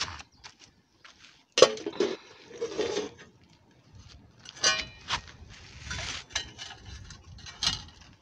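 Metal pans and a flat metal shovel knocking and scraping together on the fire's coals and ash: a row of separate clanks and scrapes, the loudest about a second and a half in, a few of them ringing briefly.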